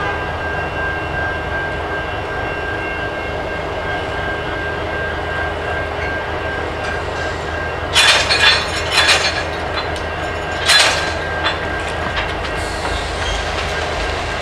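Diesel freight locomotives idling with a steady hum and a high whine. About eight seconds in comes a burst of loud metallic banging, and another sharp bang near eleven seconds, as freight-car couplers and slack bang together during switching.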